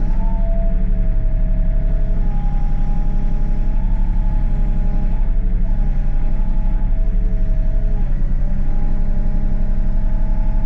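Excavator's diesel engine running steadily under hydraulic load while the boom and dipper are worked, with a whine that steps up and down in pitch several times as the controls are moved.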